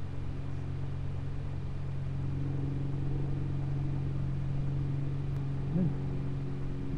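A steady mechanical hum made of several held low tones over a low rumble, like a motor or engine running. Near the end come one or two short pitched sounds that rise and fall.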